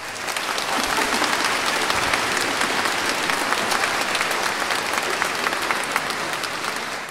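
Concert audience applauding steadily, a dense patter of many hands clapping, which starts as the choir and orchestra fall silent.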